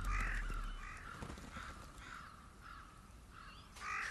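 Crows cawing in a run of repeated short calls, loudest at first and fading, with another louder caw near the end.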